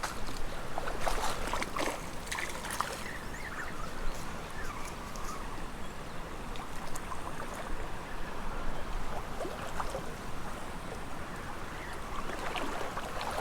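Small spring creek running and trickling steadily, with a few short sharp splashes or knocks in the first three seconds.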